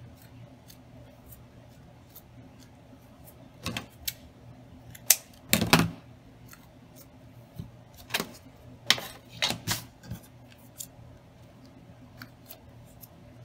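Scissors snipping the excess off a rubber anti-slip strip fitted into a metal hair clip, with clicks from handling the clip. The sounds come as a few short clusters of sharp snips and clicks, loudest about five to six seconds in.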